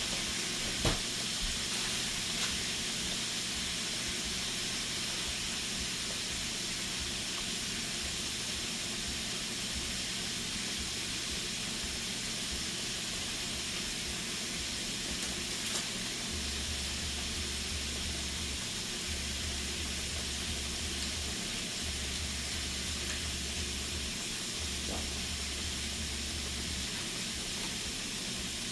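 Food frying in hot oil in a pan, a steady sizzle, with a small click about a second in.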